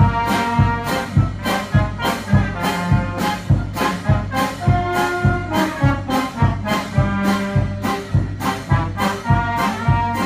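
Wind band playing, brass carrying sustained melody and chords over a steady percussion beat of about two strokes a second.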